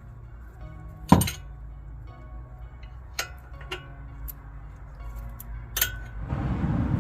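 Background music with a steady beat, over which metal tools clink sharply against metal four times, the first the loudest. A rushing noise starts near the end.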